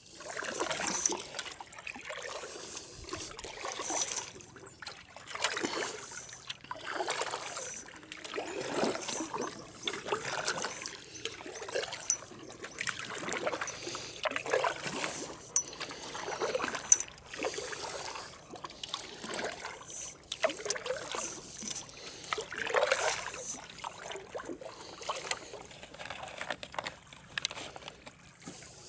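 Oars being pulled through calm lake water in a steady rhythm, about one stroke every second and a half, each stroke a swish of water with trickling and dripping from the blades.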